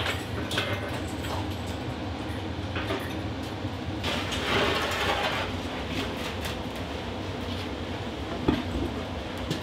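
Large plywood sheets being handled in a workshop over a steady low rumble: a scraping rush about four seconds in as a sheet slides, small knocks and clatter, and one sharp knock near the end as a panel is set down.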